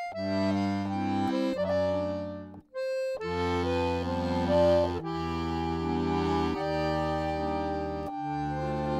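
Piano accordion playing a melody over held bass chords, with a brief break in the playing about three seconds in.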